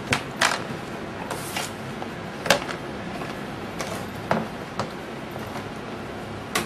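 Papers and a cardboard folder being handled on a table: scattered light clicks and knocks with a brief rustle of paper about a second and a half in, and a sharper tap about two and a half seconds in.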